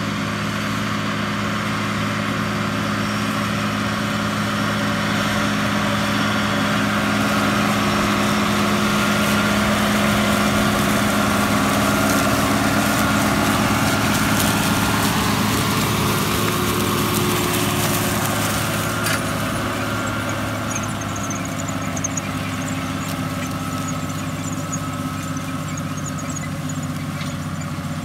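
170 hp Allis-Chalmers 8070 tractor's turbocharged six-cylinder diesel running steadily under load while pulling a planter. It grows louder as the tractor passes, loudest around the middle, then eases off as it moves away.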